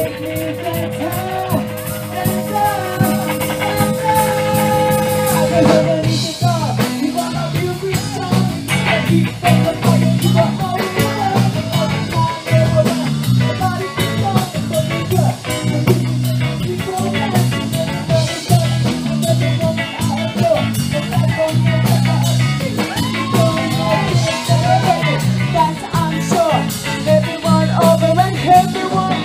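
Live ska band playing with saxophone, trombone, electric guitar, bass and drum kit, with a female singer's voice. A long held note opens, and about six seconds in the full band comes in with a steady beat.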